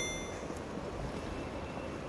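Steady background noise of a busy railway station, a low rumble and hiss. A chime's ringing fades out in the first half second.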